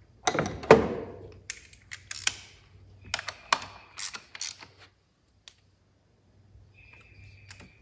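Hand socket ratchet on an extension tightening a 10 mm bolt on the engine top: a run of irregular sharp clicks and metal clanks over the first four and a half seconds, then it goes quiet.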